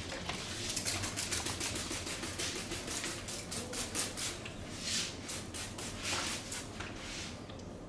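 Rapid percussive hand slaps of a barber's massage, the quick chopping and tapping strokes on the body, about six or seven a second, with a few louder, longer strokes in the middle.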